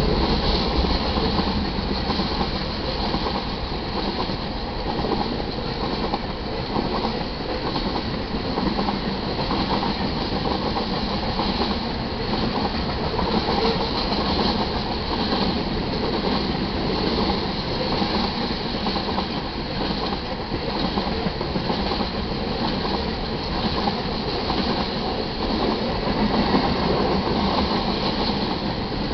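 Covered hopper cars of a freight grain train rolling past at a grade crossing: a steady run of steel wheels on rail with repeated clacks as the wheels pass over the track.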